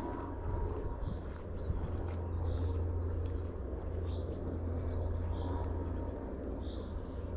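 Songbirds singing: three high, falling runs of notes a couple of seconds apart, among short repeated chirps, over a steady low rumble.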